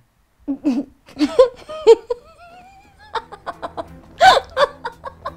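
A person laughing in a run of short bursts, the loudest about four seconds in.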